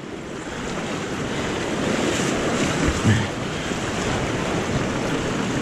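Fast, shallow mountain river rushing over rocks as a steady, loud whitewater rush, with a brief low sound about three seconds in.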